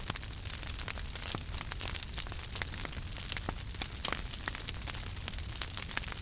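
A fire crackling: many small sharp pops and snaps at irregular intervals over a steady hiss.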